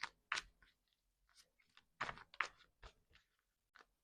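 Tarot cards being handled on a table: a scattering of soft, sharp clicks and taps, densest about two seconds in.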